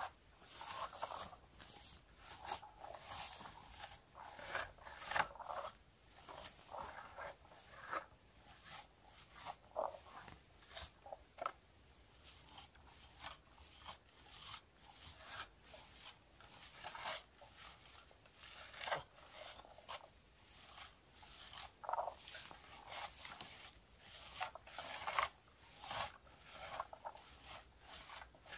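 Handheld berry picker combing through low wild blueberry (bilberry) bushes: short, irregular rustling and scraping strokes, about one or two a second, as the tines strip berries from the twigs.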